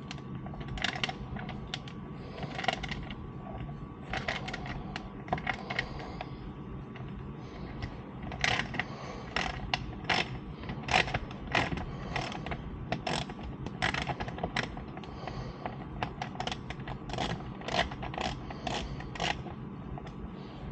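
Irregular small metallic clicks and rattles of hand tools: a tiny Torx bit and driver being handled and worked on the star screws, with clusters of quick clicks toward the end.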